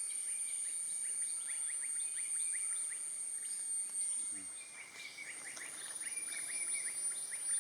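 Tropical forest ambience: a steady high-pitched insect drone that breaks off briefly about five seconds in, over many quick, falling bird chirps.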